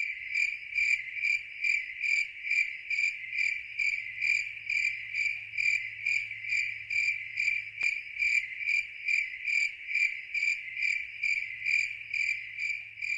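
Cricket chirping in a steady, even rhythm, about two to three chirps a second.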